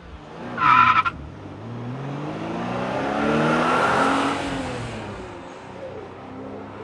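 A car horn sounds briefly about a second in. Then a car drives past, its engine rising in pitch and loudness to a peak about four seconds in and fading away.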